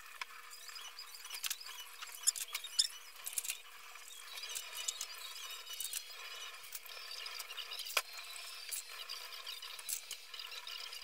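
Dishes and utensils clinking and knocking at a kitchen sink during washing up: a scatter of light, sharp clinks, with one sharper knock about eight seconds in.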